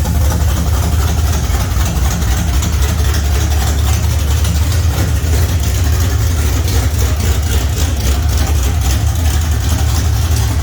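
Camaro's 383 stroker small-block V8, freshly rebuilt with a new cam and headers, running steadily at idle with an even pulsing beat.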